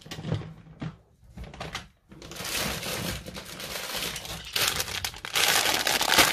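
Crinkly plastic sweet bags rustling and crinkling as they are handled. It starts as a few scattered rustles, becomes steady crinkling about two seconds in and gets louder near the end.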